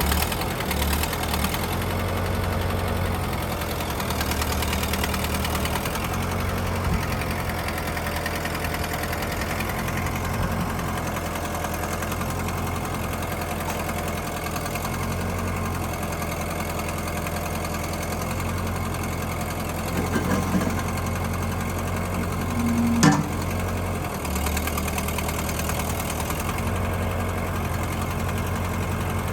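Kubota M59 tractor's diesel engine running steadily at low speed, with a sharp brief click and squeak about 23 seconds in.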